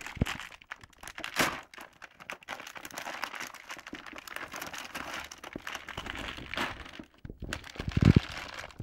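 Packaging of a TV accessory pack crinkling and rustling as it is opened by hand, with a sharp crack about a second and a half in and a heavier thump near the end.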